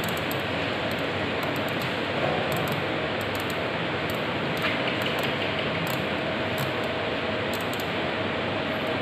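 CNC milling machine running: a steady machine hum with a faint, steady high whine.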